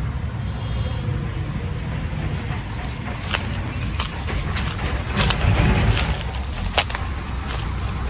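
Low rumble of wind on the microphone, with scattered sharp crackles and snaps of feet walking through dry leaf litter and twigs, most of them in the second half.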